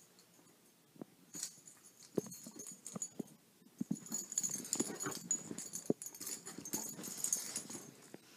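A dog chasing a laser pointer dot on carpet: scattered taps and thumps of its paws as it pounces, with a stretch of breathy scuffling in the second half as it noses and paws at the dot.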